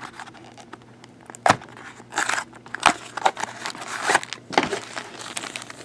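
A small cardboard trading-card pack box being handled and opened by hand: a few sharp clicks and short scraping rustles of cardboard.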